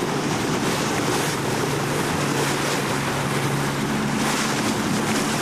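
Panga fishing boat running at speed: a steady engine hum under the rush of water along the hull, with heavy wind buffeting the microphone.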